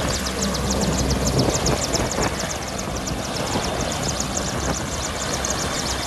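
AgustaWestland AW101 helicopter running on the ground with its rotors turning: a steady turbine roar over a low rumble, with a fast, even chop of the blades.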